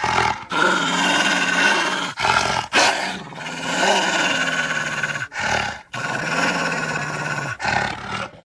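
Creature sound effect: a series of rough animal-like growls and roars in several bursts with short breaks between them, cutting off suddenly near the end.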